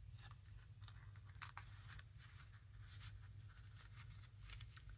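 Near silence with faint, scattered rustles and light taps of paper cards being handled and slid about.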